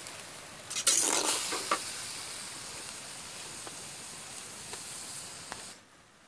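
Goat blood and onions sizzling in an iron wok over a wood fire, with a perforated metal ladle stirring. There is a louder burst of scraping about a second in, then a few light clinks of the ladle against the pan. The sizzle cuts off suddenly near the end.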